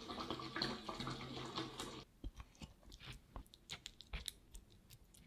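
Silicone spatula working thick, sticky caramel walnut nougat: dense wet squelching and crackling while it is stirred in a saucepan. About two seconds in, this gives way to sparse, separate sticky clicks and squishes as the nougat is spread into a tart shell.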